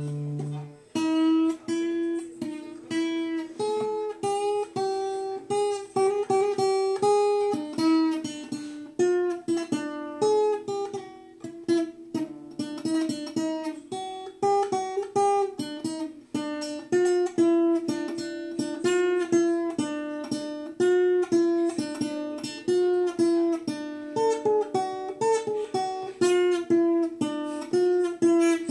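Acoustic guitar played alone, with no singing: a picked melody of single notes moving up and down over a repeated lower note, a new note every fraction of a second.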